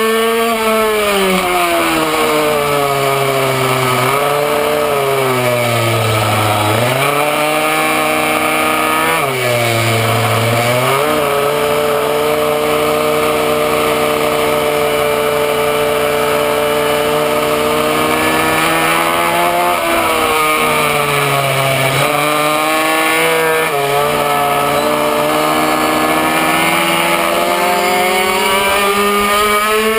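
Minimoto's small two-stroke engine running hard on track: its pitch drops several times as the throttle closes for corners and climbs again on acceleration, with long stretches held at high revs.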